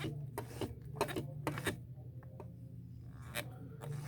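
Light clicks and taps from handling a Singer Touch and Sew 620 sewing machine, scattered irregularly over a low steady hum.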